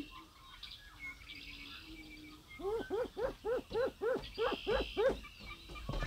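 Greater prairie-chickens calling on their display ground. A few faint low hoots come first. About halfway through, a quick run of about ten short rising-and-falling calls follows at about four a second.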